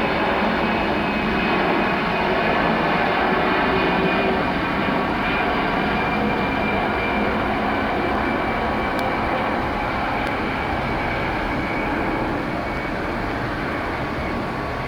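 Airliner engines running loud and steady, a dense rumble with a faint high whine, easing slightly near the end.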